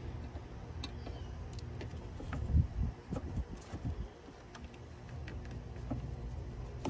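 Hand tools and the metal battery hold-down bracket being fitted into place, giving scattered small metallic clicks and, about two and a half to four seconds in, a few louder knocks, over a steady low hum.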